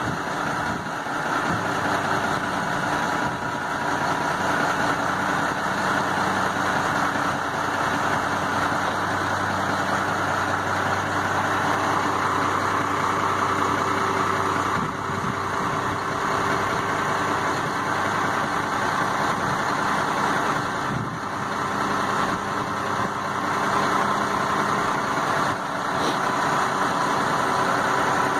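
A 1992 Ford LT8000 dump truck's 7.8-litre inline-six diesel engine idling steadily.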